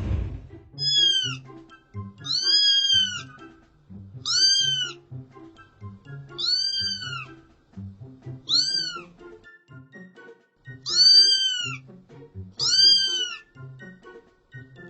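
Cat meowing repeatedly: seven high-pitched meows, each rising then falling in pitch, about every two seconds, over background music with a steady beat.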